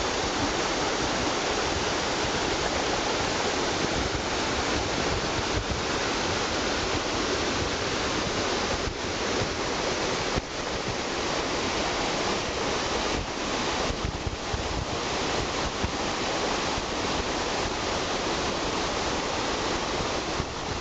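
Rocky upland stream tumbling over small cascades and boulders: a steady rush of water.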